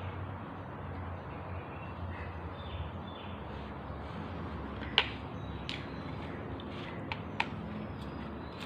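Steady low hum with a handful of sharp clicks, the loudest about five seconds in and a few smaller ones over the next two and a half seconds.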